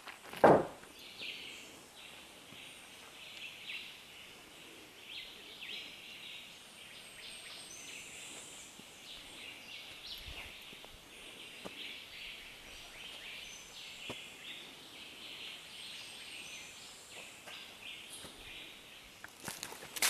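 Tropical forest ambience: a constant chorus of high, rapid chirping from forest wildlife, with one sharp knock just after the start.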